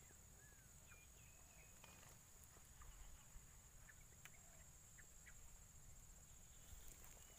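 Near silence: quiet outdoor ambience with a few faint short bird chirps and a steady faint high-pitched tone.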